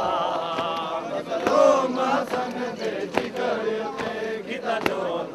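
Crowd of men chanting a noha (mourning lament) together, with sharp hand slaps on the chest (matam) falling in time about every second and a half.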